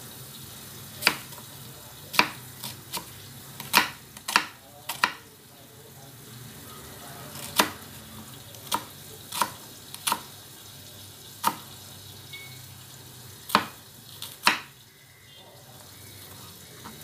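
Kitchen knife slicing shallots on a wooden chopping board: sharp knocks of the blade striking the board, about fourteen in all, unevenly spaced, some in quick runs and some after pauses of a second or two.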